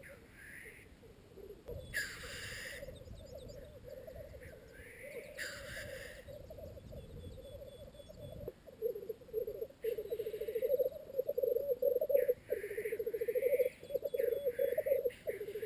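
Black grouse cocks displaying at a lek: a continuous bubbling rookooing song that grows louder about halfway through, broken every few seconds by loud hissing 'tchu-whee' sneeze calls.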